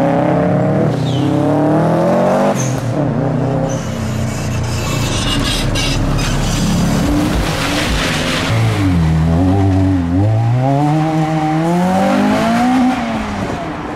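A modified car's engine revving hard as it pulls away. The revs climb at the start, a harsh hiss like spinning tyres runs through the middle, and near the end the engine note drops low and climbs again under hard acceleration.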